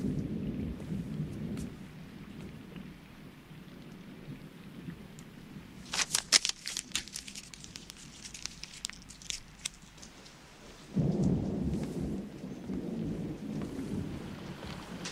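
Rain with rolling thunder: a low rumble fades in the first couple of seconds and swells up again suddenly about eleven seconds in. In between, a quick run of sharp crackling clicks lasts a few seconds.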